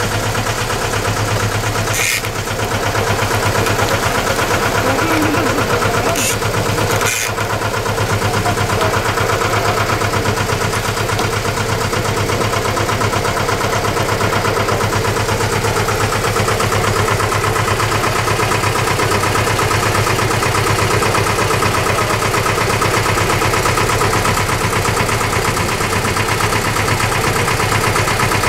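Tour boat's engine running steadily at cruising speed, a constant low hum, with a few short clicks about two, six and seven seconds in.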